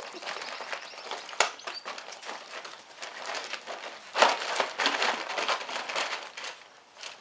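Plastic tarp crinkling and rustling under puppies' paws as they walk and scramble over it, with a sharp crackle about a second and a half in and a louder stretch of rustling from about four to six seconds in.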